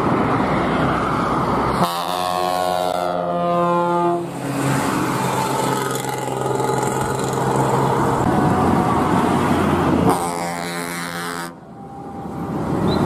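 Buses passing on a highway, sounding loud multi-tone air horns in several long held blasts over engine and traffic noise. The sound cuts abruptly between blasts, with a brief dip near the end.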